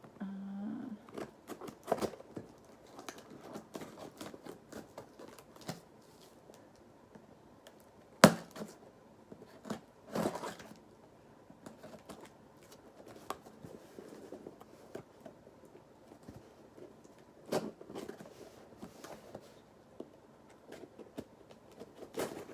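A plastic bag and box being cut open and handled: scattered clicks, snips and rustles, with one sharp snap about eight seconds in.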